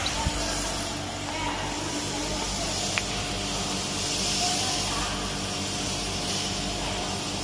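Steady machine hum with a hiss, broken by a single sharp click about three seconds in.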